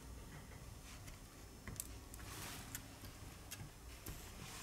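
Faint, scattered small clicks and light scraping from a plastic pry tool and fingertips working a metal connector bracket and flex cable inside an opened smartphone. The clicks come irregularly, about five over the few seconds.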